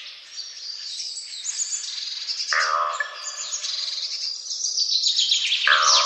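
Crows cawing, one harsh call about two and a half seconds in and another near the end, over a dense chorus of small birds chirping.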